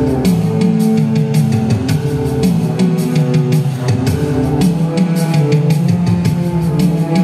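Recorded backing music with a steady drum beat and held melody lines, played to accompany a stage dance.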